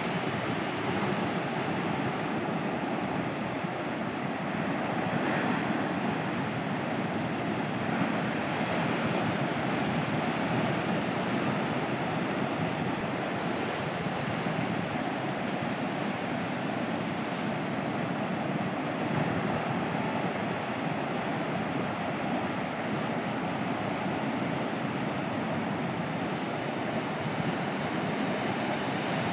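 Steady roar of heavy ocean surf, big waves breaking and whitewater churning, with no change in level.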